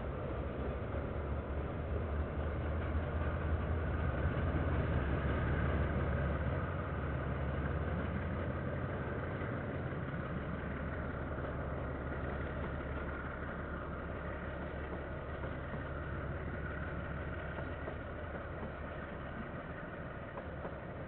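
Diesel-hauled KiwiRail train passing: a low engine rumble, loudest about four to six seconds in, then slowly fading as the wagons roll by.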